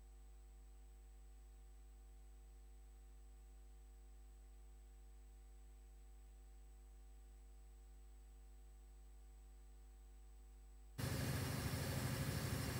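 Near silence with a faint steady electrical hum and a thin high tone. About eleven seconds in, a louder steady hiss and hum cut in suddenly: the room sound of an open desk microphone.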